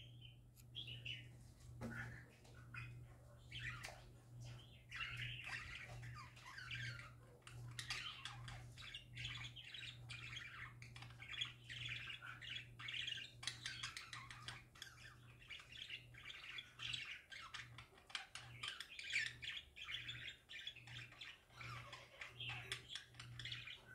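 Budgerigars (pet parakeets) chattering and warbling without a break, a busy stream of chirps, squeaks and short squawks. A low steady hum runs underneath.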